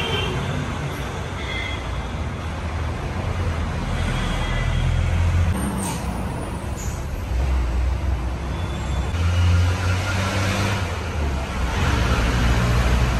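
Background motor traffic: vehicle engines running and passing, a low rumble that rises and falls.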